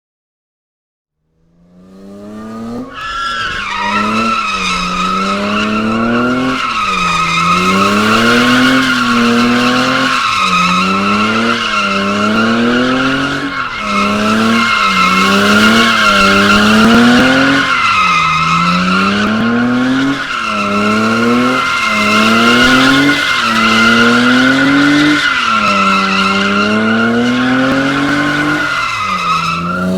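Car drifting: continuous loud tyre squeal with the engine revving up and dropping back again and again, roughly every second and a half. It starts suddenly about a second and a half in.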